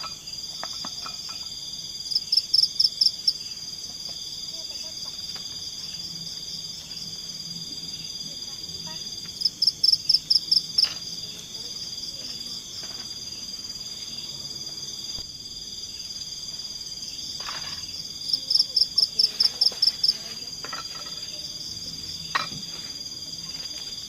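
Steady high-pitched chorus of insects such as crickets trilling. Three times, about eight seconds apart, a louder, nearer caller gives a quick run of about seven sharp chirps.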